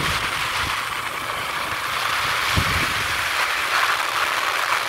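Rush of wind over the microphone of a moving open vehicle, a steady hiss with irregular low buffeting gusts, over vehicle engine and road noise.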